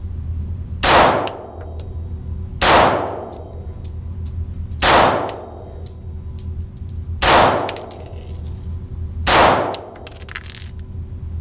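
Ruger MkIV 22/45 Lite .22 LR pistol fired slowly, five shots about two seconds apart, each shot ringing with an echo off the indoor range.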